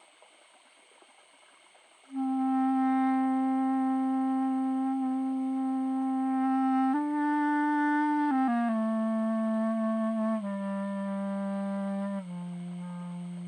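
A clarinet-like woodwind tone playing a slow line of long, steady held notes, starting about two seconds in. The first note lasts about five seconds, the next is one step higher, and then the line steps down through several lower notes.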